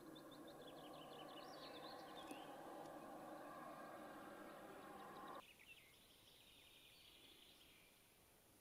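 Faint songbird song, high chirps and trills, over a steady low hum that cuts off suddenly about five seconds in.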